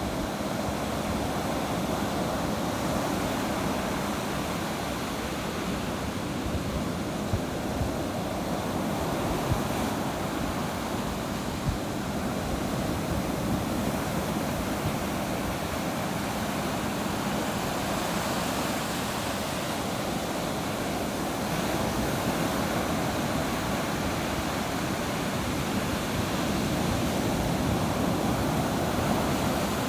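Ocean surf: a steady, continuous wash of breaking waves, swelling a little louder near the end.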